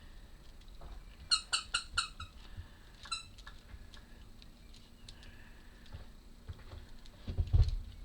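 Runs of short, high-pitched squeaks, three or four in quick succession, with faint handling sounds and a dull low thud near the end.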